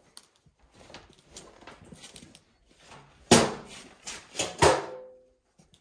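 Light handling clicks, then two loud clanks about a second apart, the second ringing briefly, as the ATV's removed front plastic piece with its steel rack is set down and knocked into place.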